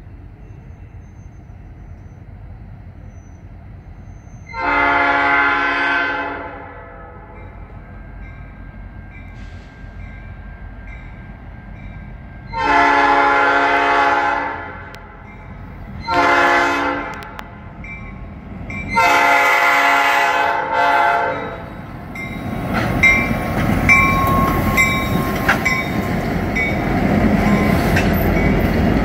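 Canadian National freight locomotive horn sounding the grade-crossing signal: two long blasts, a short one, then a long one. After the last blast the locomotives reach the crossing, and their diesel engines and the rumble and clatter of wheels on rail grow loud as the train rolls past.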